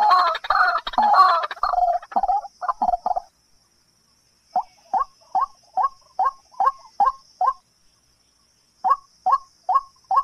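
A bird calling. A dense run of overlapping calls gives way to short, sharp single notes, about two or three a second, in two bouts separated by a pause of about a second. A faint, steady high hiss runs underneath.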